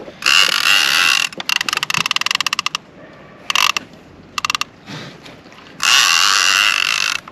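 Fishing reel's drag buzzing and clicking in bursts as a big hooked fish pulls line off. There is a long run at the start and another near the end, with rapid clicks and short spurts in between.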